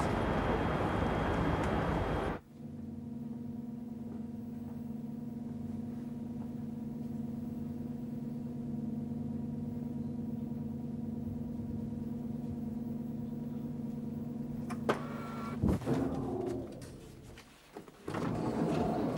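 Busy crowd and footstep ambience that cuts off about two seconds in. It gives way to a lift car's steady electric hum. About sixteen seconds in there is a clunk and a falling sound as the lift comes to a stop.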